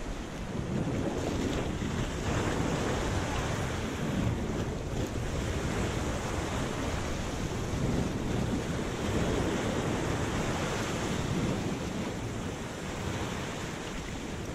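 Sea surf washing over a rocky breakwater, rising and falling in surges every few seconds, with wind buffeting the microphone.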